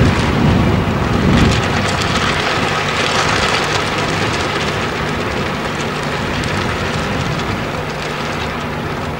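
HST Class 43 diesel power car running as the train approaches slowly over the points, a steady low engine hum with scattered clicks from the wheels on the track. A heavy low rumble fills the first second and a half.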